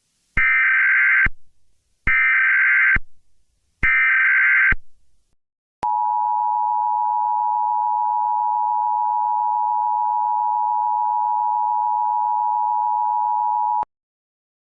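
Emergency Alert System alert opening: three short bursts of digital SAME header data, then the steady two-tone EAS attention signal held for about eight seconds before cutting off. Together they signal that an emergency broadcast message is about to follow.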